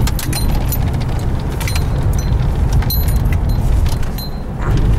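Car cabin noise while driving: a steady low rumble of engine and tyres on the road, with frequent small clicks and rattles.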